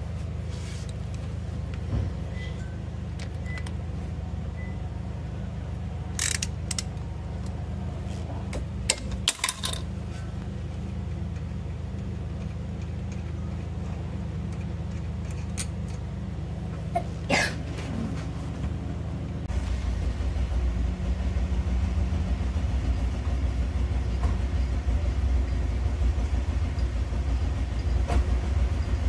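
A steady low rumble with a few short, sharp metal clicks and taps as a brake caliper is handled. The rumble becomes louder and deeper about two-thirds of the way through.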